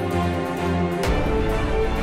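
Background music of sustained chords. About a second in there is a sharp hit and the chord changes, with a deeper bass coming in.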